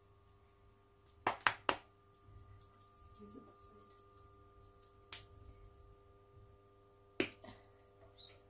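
Shaker of dried oregano shaken and tapped over the food, giving sharp clicks: three in quick succession about a second in, one near the middle and two near the end. A faint steady hum runs underneath.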